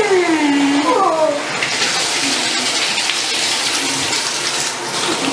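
Water running into a bathtub while a wet Great Dane puppy is washed by hand, a steady splashing rush. Two falling whines sound in the first second and a half.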